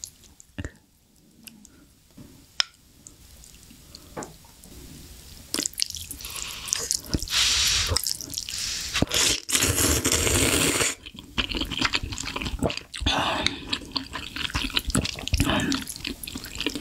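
Wet slurping of glass noodles and spicy broth, loud and continuous in bursts from about a third of the way in, after a quieter start with a few sharp clicks.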